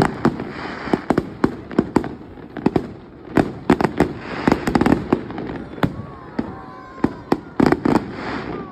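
Fireworks display: a rapid, irregular run of sharp bangs and crackles from bursting shells, with a tight cluster of loud reports shortly before the end.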